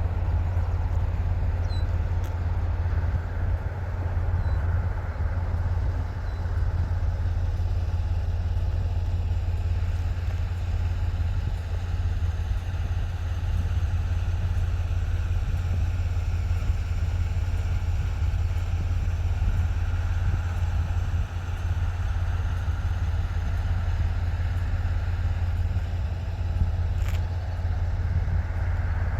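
Truck engine and road noise while driving: a steady low drone under a constant rush of noise.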